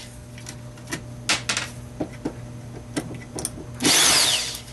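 A power drill-driver running in short bursts, taking screws out of the projector's metal base plate. The tail of one burst is at the start and another comes near the end, each with a falling whine. Light clicks and knocks of metal parts being handled fall in between.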